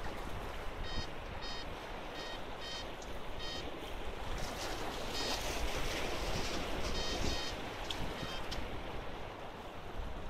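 Small sea waves washing and splashing over jetty rocks, swelling about halfway through. Over them, short electronic beeps from the bite alarms on the fishing rod pod come in quick pairs and small runs, stopping a little before the end.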